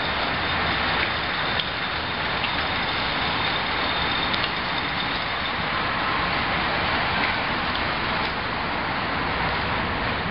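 A pack of racing bicycles speeding past on asphalt: a steady whir of tyres and drivetrains.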